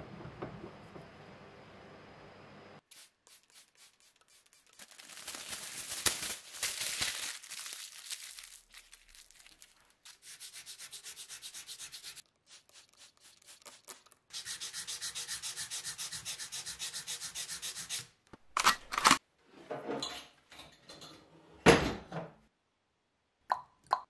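Steel jaws of a bench vise being scrubbed by hand with a crumpled pad, in several separate bursts of rubbing, some in an even fast rhythm. A steady hum comes at the start, and a few loud sharp clacks come near the end.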